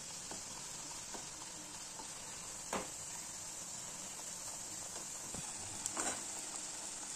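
Puris deep-frying in a kadai of hot oil: a steady high-pitched sizzle of bubbling oil, with two light knocks, about three seconds in and again near six seconds.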